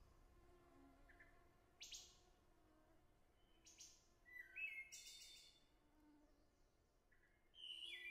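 Near silence broken by a few faint, short high-pitched chirps, about four of them spaced a second or more apart.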